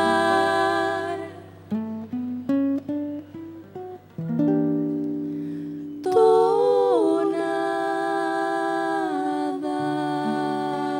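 A vocal duo with acoustic guitar closing a Cuyo tonada. The voices hold the word 'cantar', then the guitar plays a short climbing run of single plucked notes, and the voices glide back in on a long held note.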